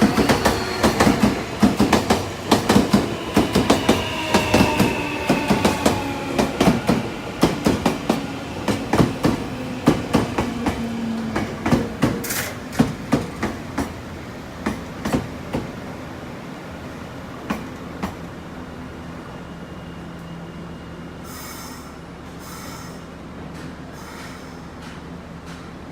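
Nankai 12000-series electric express train braking into a station: wheels clatter rapidly over rail joints and points while brake and wheel squeal glides down in pitch. The clatter slows and stops about halfway through, leaving a steady low hum from the standing train, with two short hisses of air near the end.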